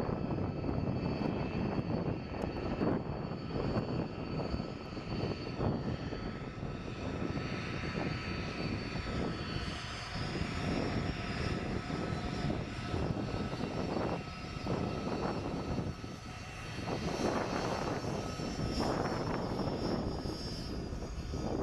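Airbus A330-300 twin turbofan jet engines running as the airliner lines up for takeoff. A steady engine roar with a high whine that rises in pitch as the engines spool up for the takeoff roll.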